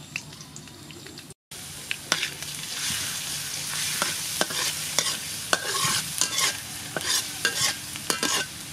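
Chopped garlic sizzling as it fries in hot oil in a metal wok, with a spatula clicking and scraping against the wok as it is stirred. The sound cuts out briefly about a second and a half in, then the sizzle goes on steadily.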